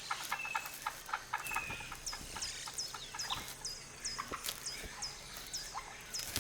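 Chestnut-headed oropendola colony calling: a run of short, sharp, high notes repeated about three times a second, mixed with scattered clucks and clicks.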